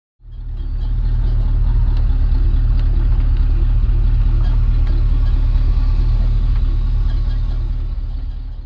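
Steady low rumble of a vehicle driving along a gravel road, tyre and road noise included; it fades near the end.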